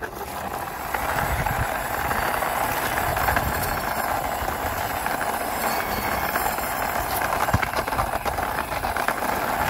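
Plastic wheels of a toy car rolling on rough concrete as it is pushed slowly by hand, a steady gritty rumble with small scattered clicks.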